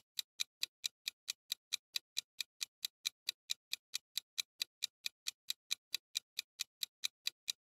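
Quiz countdown timer sound effect: a clock ticking in fast, even ticks, about four or five a second.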